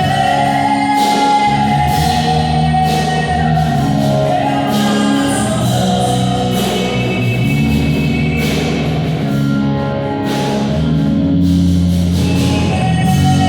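Music with singing: a voice over instrumental accompaniment, with steady, evenly spaced strokes or beats.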